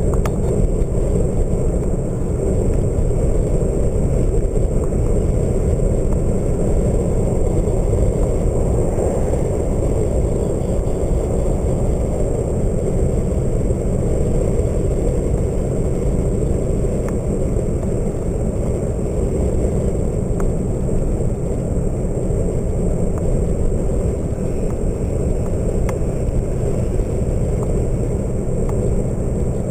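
Steady wind rush and road noise of a vehicle driving at speed, picked up at the cab's open side window.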